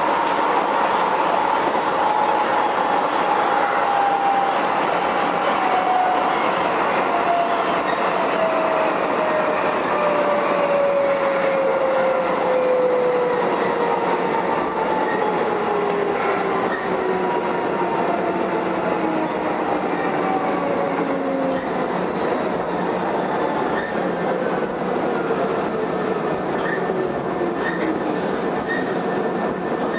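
Keisei 3500-series train running, with rumble from the wheels and track and a whine from the running gear that falls slowly and steadily in pitch over about twenty seconds as the train slows.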